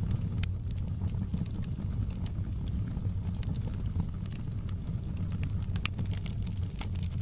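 Wood fire in a fireplace crackling, with sharp pops and snaps scattered over a steady low rumble of the flames.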